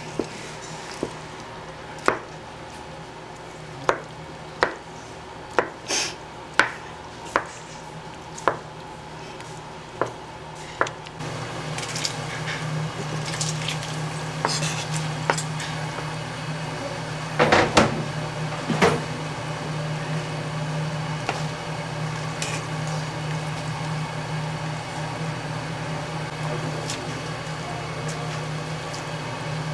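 Restaurant kitchen prep: a knife striking a wooden cutting board about once a second for the first ten seconds or so, then a steady hum with a brief clatter of dishes a little past halfway.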